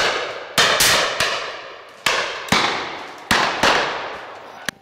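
A rapid volley of shotgun shots from several guns at driven pheasants: about seven reports, some in quick pairs, each ringing on in a long echo through the trees.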